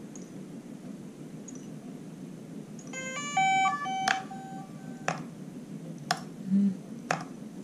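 DJI Mavic Pro drone powering up: a short run of electronic startup tones about three seconds in, followed by four sharp clicks about a second apart from the camera gimbal. The clicks are the sign of a faulty gimbal, which the controller flags as "Gimbal Obstructed"; the fault lies in the camera ribbon cable.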